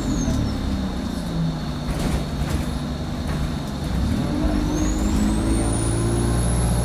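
Diesel engine of an Alexander Dennis Enviro 200 single-deck bus heard from inside the passenger saloon. It drops away at the start as the bus eases off and runs low for a few seconds with a couple of rattles. About four seconds in it pulls up again as the bus accelerates, with a high whine climbing in pitch alongside it.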